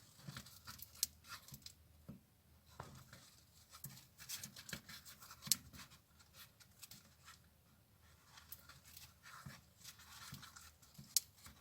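Faint scratchy rustling and small irregular clicks of a crochet hook pulling paper raffia yarn through single crochet stitches.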